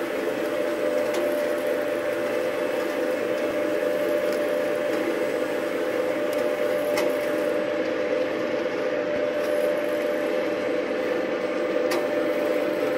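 CM200 charcoal briquette press machine running steadily: an even motor drone with a strong steady hum and a few faint ticks.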